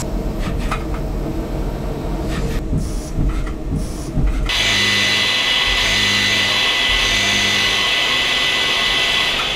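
Tornos GT 32 Swiss-type CNC lathe machining a brass part. It starts with mixed cutting noise and scattered clicks. About halfway through this changes to a steady high whine with hiss as a live-tool end mill cuts the hex, over a low hum that pulses about once a second.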